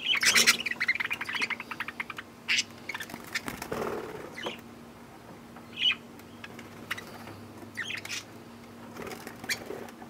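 Budgerigars flapping their wings in a quick flurry at the start as they jostle on a hand, then short chirps and squawks here and there through the rest.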